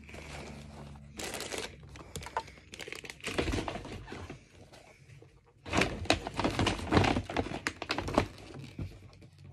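Gift packaging crinkling and rustling as it is handled, with scattered knocks of objects being moved; the rustling is busiest and loudest in a stretch starting about six seconds in.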